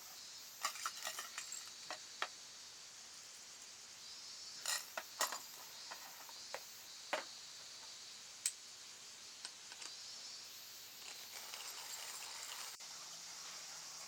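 Scattered clinks and taps of metal utensils against cookware, in small clusters about a second in and about five seconds in, with a few single clicks later, over a steady high hiss.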